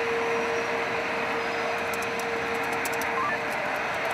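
Steady rushing noise inside a storm-chase vehicle's cabin, with a steady mid-pitched hum that fades out about three and a half seconds in.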